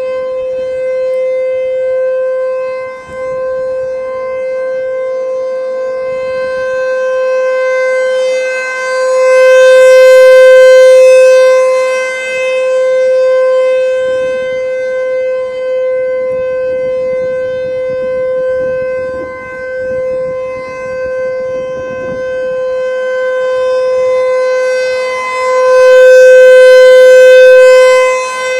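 Emergency warning siren sounding a loud, steady wail at a constant pitch during a siren test, swelling louder twice and easing back.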